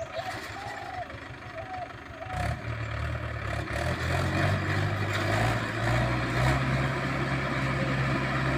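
Mahindra tractor's diesel engine working a rotavator through dry soil. It runs quietly at first, then comes in louder and heavier about two seconds in and holds steady under load.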